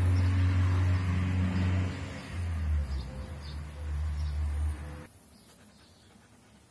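An engine running with a steady low hum that cuts off suddenly about five seconds in, with faint bird chirps.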